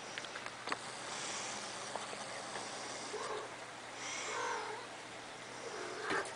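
A cat gives short, soft calls about three seconds in and again about a second later, over a steady hiss, with a few light clicks near the start.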